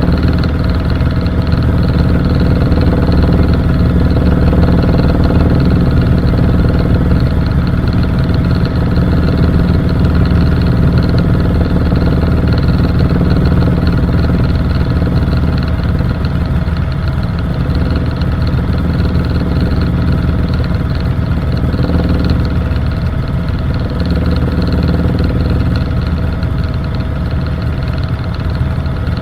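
Helicopter in flight: steady engine and rotor noise with a constant hum of several fixed tones, holding level without change.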